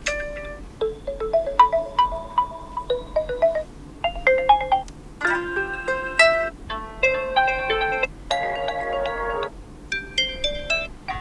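Oppo Reno7 5G built-in alarm tones previewed one after another: short melodic jingles of quick pitched notes, about six in turn, each stopping after one to three seconds before the next begins.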